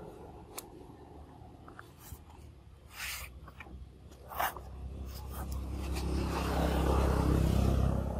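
A few short scrapes and taps, the loudest about four and a half seconds in, then a passing motor vehicle's low rumble swelling to its loudest near the end.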